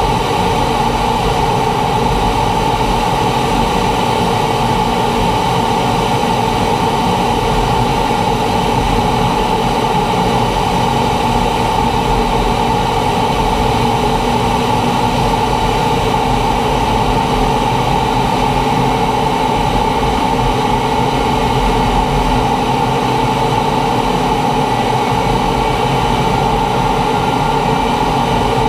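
T-45 Goshawk jet trainer in flight: the steady whine of its Rolls-Royce Adour turbofan with several constant tones over an even rush of air noise, unchanging throughout.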